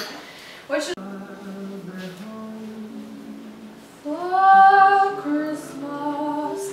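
A woman singing long held notes without words, softly and low at first, then louder and higher from about four seconds in.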